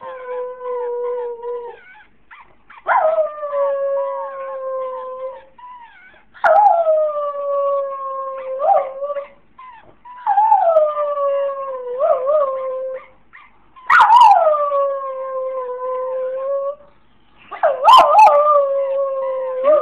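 Jack Russell terrier howling ('singing') in six long drawn-out notes, most starting higher and sliding down before holding steady, with short breaks between them. She howls like this when her toy is played and kept from her.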